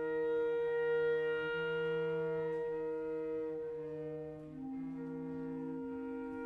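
Flute, clarinet and cello playing contemporary chamber music, holding long overlapping notes together; the lower notes shift to new pitches about four and a half seconds in.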